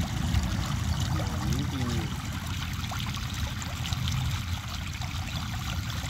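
Water flowing and trickling steadily into a freshly dug earthen pit, with a steady low rumble beneath. A faint voice is heard briefly about a second and a half in.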